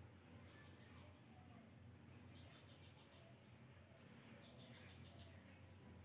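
Faint bird call repeated about every two seconds: a short high note followed by a quick run of about five clipped notes, heard four times over a low steady hum.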